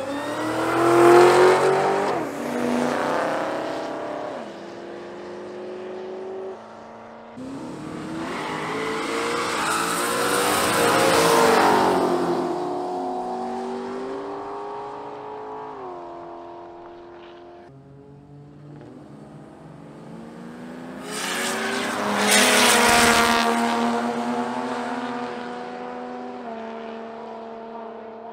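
Drag cars launching down the strip one after another, three runs in all. Each engine rises in pitch under hard acceleration, steps through gear changes, then fades away down the track.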